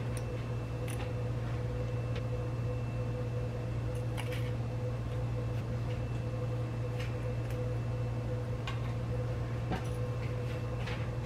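Steady low mechanical hum like a running fan, with a few faint clicks and taps as grilled chicken breasts are set down on plates with metal tongs.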